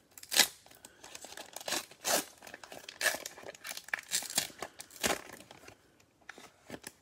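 A Panini Mosaic NFL trading-card foil pack being torn open and crinkled by hand: a run of irregular rips and crackles that thin out near the end.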